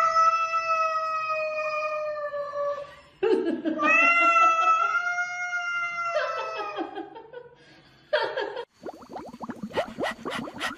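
A cat yowling: two long drawn-out calls of about three seconds each, then a short call, followed by a quick run of clicks or knocks near the end.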